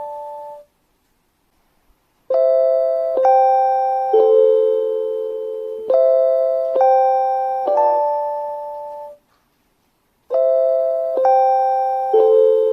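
JR Hokkaido station guidance chime for blind and visually impaired passengers, an electronic three-note ding-dong motif played twice over, then a pause of about a second before it starts again. The last notes of one round ring out at the start, there is a short silence, one full round follows, and a new round begins near the end.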